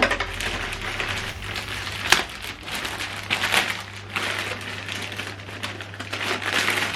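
Packaging being handled and unpacked, crinkling and rustling in irregular bursts, with a sharp click about two seconds in.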